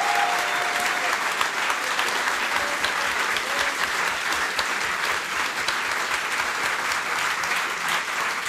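Audience applauding, a dense steady clapping that carries on without a break.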